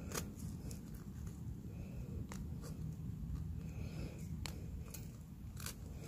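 Faint, scattered scrapes and clicks as the edge of a steel survival card is worked against a thin wooden stick, shaving off curls for tinder.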